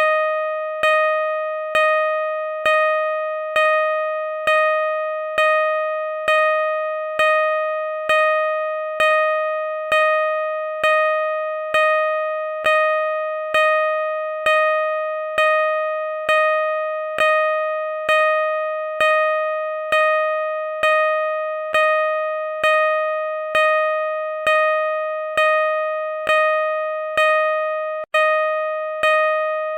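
Car parking sensor beeping at a steady, unchanging pace, a little more than once a second. Each beep is a single mid-pitched tone that starts sharply and fades into the next, with one brief break near the end.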